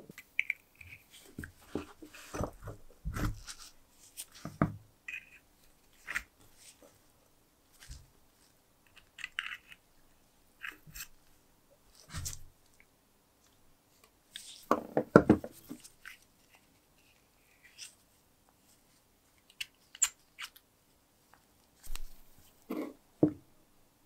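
Dry cotton packing and wick being picked and pulled out of a small brass lighter tank with a metal pick and pliers: crunching and tearing of the fibres with small metal scrapes and clicks, in short separate bursts, the loudest about fifteen seconds in.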